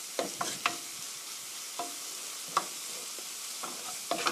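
Diced tomatoes with onion and garlic sizzling in an oiled frying pan, stirred with a wooden spatula that scrapes and knocks against the pan several times.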